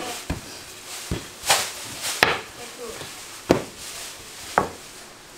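Wooden rolling pin knocking against a floured wooden board while dough is rolled out: six sharp knocks at uneven intervals, about a second apart.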